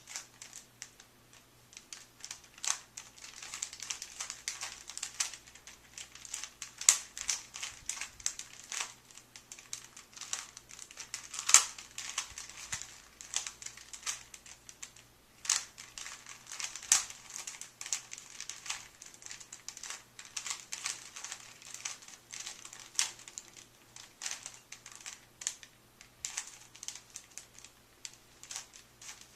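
Plastic Rubik's Cube being turned quickly by hand, its layers clicking and rattling in a fast, irregular run, with an occasional louder clack.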